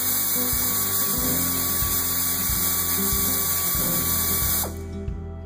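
A power tool spinning a socket on a bolt, running steadily with a hiss and stopping suddenly near the end. Background music plays underneath.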